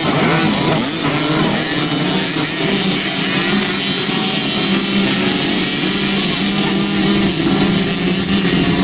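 A pack of small youth two-stroke motocross bikes racing together, many engines revving over each other. Their pitches rise and fall near the start, then settle into a steadier high-pitched drone.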